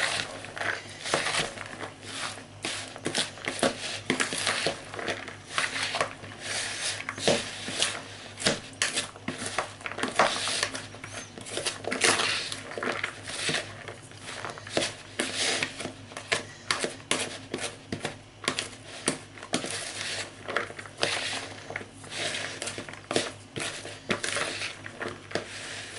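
A spoon mixing a filling of diced part-cooked potato, grated cheese and chopped onion in a bowl: irregular scrapes and clicks of the spoon against the bowl, several a second.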